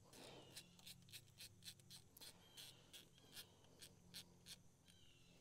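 Faint, uneven clicking, about three clicks a second, of a hand tool working the 7 mm valve-cover bolts loose.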